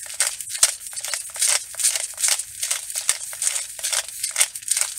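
Hand-twisted clear plastic pepper grinder grinding fresh black peppercorns, a quick, even series of gritty grinding strokes, about three or four a second.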